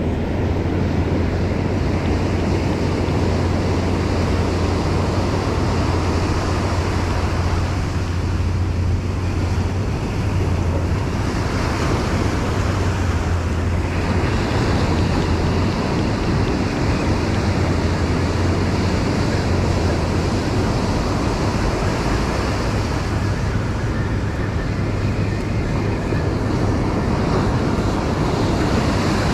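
Ocean surf breaking and washing on a beach, with wind buffeting the microphone in a steady low rumble.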